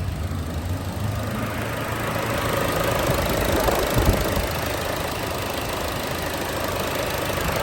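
Chevrolet car engine running steadily with a low rumble and hiss, just after its evaporative emissions canister purge valve has been replaced.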